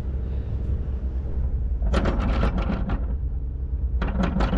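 Anchor windlass hauling in chain: a steady low drone with two runs of rapid clacking, about a second each, around two and four seconds in. The anchor is fouled on something on the harbour bottom, so the windlass is under heavy strain.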